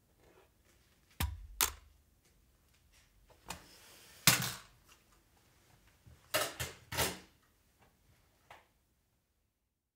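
Leitz 5008 metal hole punch punching holes in A4 paper: a series of sharp clunks as the lever is pressed down, with a rustle of paper just before one of them.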